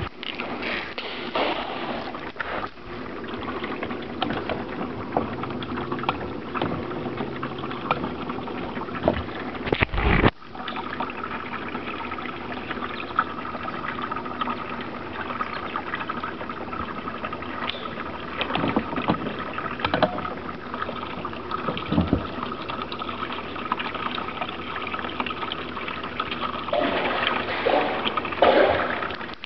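Small boat motor running with a steady whine, with a sharp knock about ten seconds in.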